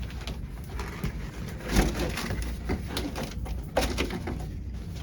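Corrugated cardboard display parts being handled and fitted together: rubbing and scraping, with a knock about two seconds in and another near four seconds.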